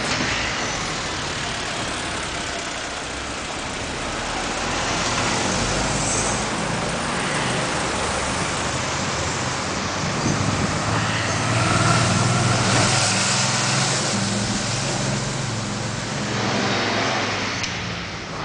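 City street traffic: cars passing with a steady rush of road noise that swells and fades several times, and a low engine hum from about ten seconds in, easing off near the end.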